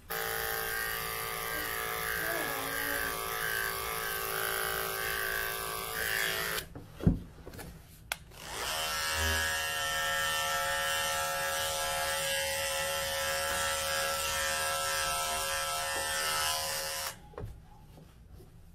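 Cordless dog grooming clipper running steadily as it shaves through matted fur. It stops about a third of the way in, there is a sharp knock, then it spins back up and runs again until a second or so before the end.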